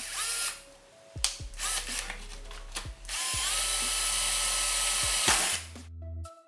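Power drill with a 5/16-inch bit boring screw holes in a car's rear parcel shelf: a short spin-up at the start, a few clicks, then a steady run of drilling for about two seconds that stops near the end.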